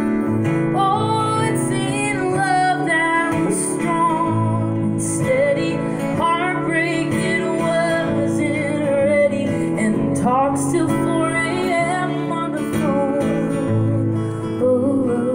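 A woman singing a slow song with vibrato, accompanying herself on acoustic guitar.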